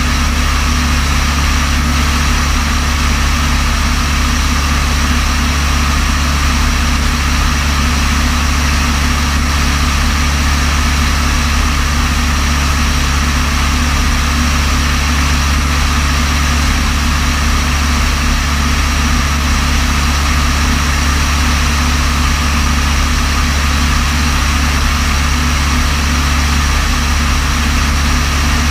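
Steady engine drone of an aircraft in cruise, heard from inside the cabin, with a deep low rumble and a few steady higher tones that do not change.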